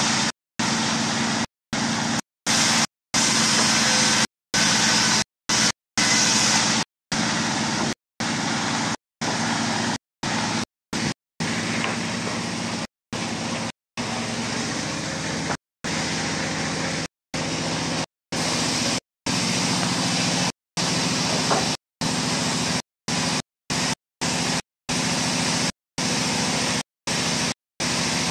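Steady engine drone with hiss, broken many times by brief dropouts to silence.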